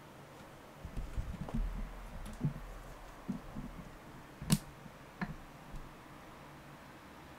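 Camera handling thumps and rubbing as the camera is moved toward a laptop, with a few sharp clicks and taps at the laptop; the loudest click comes about four and a half seconds in.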